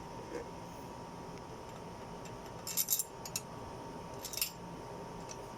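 Small steel parts clinking: cylinder-head bolts and their washers being handled, in short clusters of clinks about three seconds in and again near four and a half seconds, over a faint steady hum.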